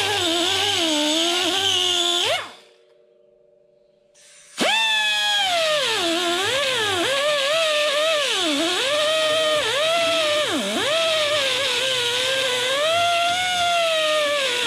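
Hand-held electric power tool motor running with its pitch sagging and recovering as it is loaded. It stops a couple of seconds in, then starts again about two seconds later and runs on.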